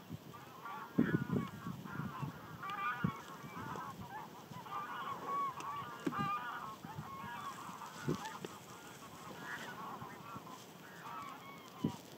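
A flock of geese calling, many short honks overlapping without a break. A few brief low thumps come through, the loudest about a second in.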